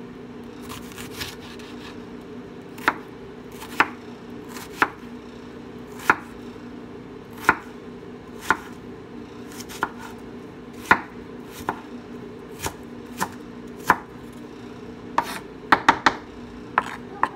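A kitchen knife slicing through an onion and knocking on a plastic cutting board, single cuts about once a second with a quick run of cuts near the end. A steady hum runs underneath.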